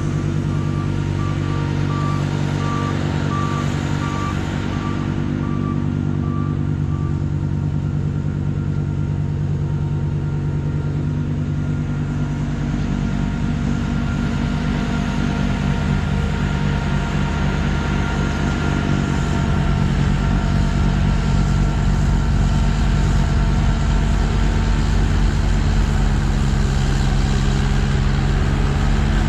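Trackless MT6 municipal tractor running steadily while blowing snow, its reversing beeper sounding about once every 0.7 seconds for the first seven seconds. The engine gets louder about two-thirds of the way through.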